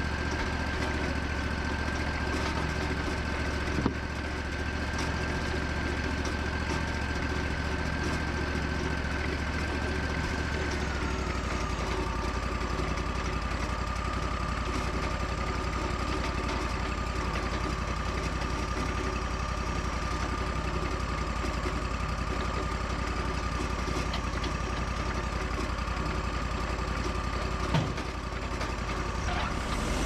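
Wood-Mizer hydraulic portable sawmill's engine running steadily. Its whine steps down to a lower pitch about a third of the way through. A sharp knock comes about four seconds in and another near the end.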